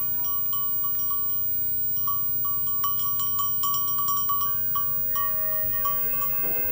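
Bells on a small herd of goats clinking and ringing as the goats walk, a repeated bright note struck a few times a second, with more bells of other pitches joining near the end.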